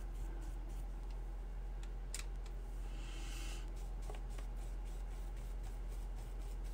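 Faint dabs and scratches of a paintbrush working watercolour paint, with a short brushing hiss about three seconds in, over a steady low hum.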